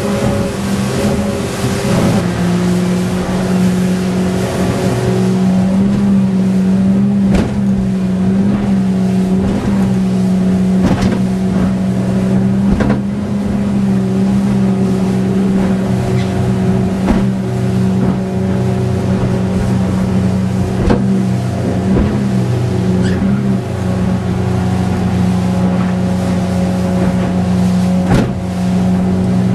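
Yamaha F100 four-stroke outboard running steadily at high speed, heard from on board, with a few sharp thumps from the hull hitting the chop.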